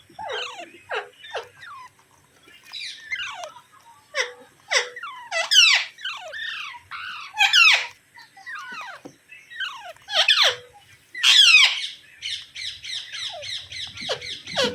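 A pet parrot calling: short, sharp calls that drop in pitch, coming every second or so, with a quick chattering run of rapidly repeated calls near the end.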